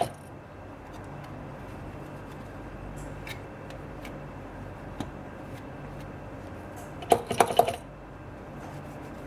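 Light clicks and taps of a phone cover glass being handled and set on a laminating mold, with a quick cluster of sharp clicks about seven seconds in, over a steady low hum.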